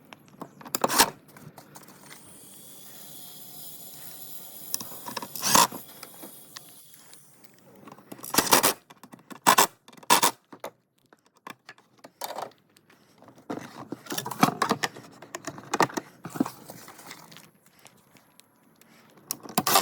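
Metal hardware and fan parts clinking, clattering and scraping as they are handled during a ceiling fan installation, with sharp knocks scattered throughout. A steady whirring sound runs between about two and seven seconds in.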